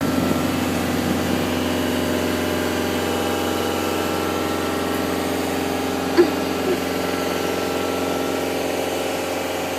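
Engine of a powered aerial lift running steadily with an even drone. Two brief sharp sounds come a little past the middle.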